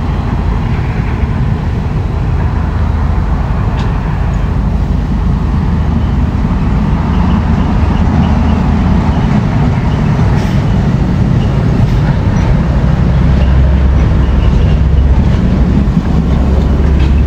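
Heavy diesel earthmoving machinery running at a work site: a loud, steady low rumble that grows a little louder in the second half, with a few faint clicks.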